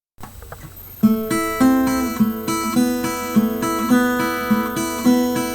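Acoustic guitar fingerpicking an arpeggiated intro. It is faint for the first second, then clearly picked notes come in at an even pace of about three a second.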